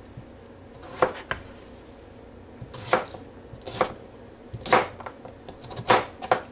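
Kitchen knife cutting red potatoes into chunks on a cutting board: about seven separate knocks as the blade goes through and hits the board, unevenly spaced.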